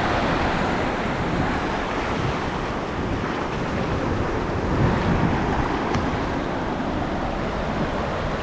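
Small waves washing in over shallow water at the shoreline, with wind buffeting the microphone. The sound is a steady rush without pauses.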